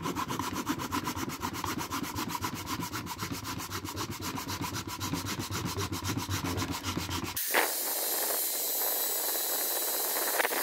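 A flat steel scraper rasping against a spalted wood form on a lathe, with a rapid even rhythm of about seven strokes a second over a low hum. At about seven and a half seconds it gives way to a right-angle power sander with a sanding disc, running with a steady hiss and a thin high whine.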